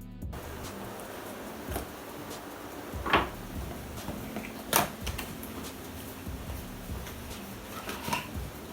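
Packaging and a wiring harness being handled: a few short knocks and rustles, the two loudest about three and five seconds in, over a steady low hum.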